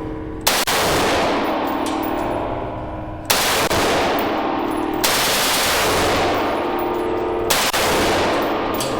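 Fully automatic machine-gun fire in long bursts, each starting sharply, about half a second, three seconds, five seconds and seven and a half seconds in.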